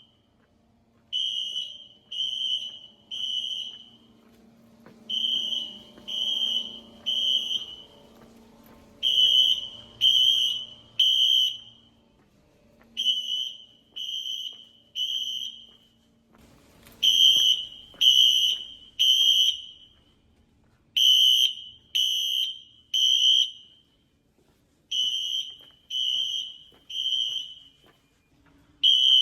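Synchronized fire alarm horns sounding the Code 3 temporal pattern: three high-pitched blasts, then a pause, repeating about every four seconds.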